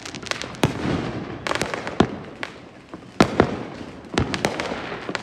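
Fireworks going off all around: a string of sharp bangs and pops, the loudest about two and three seconds in, over a continuous crackle from many distant shells.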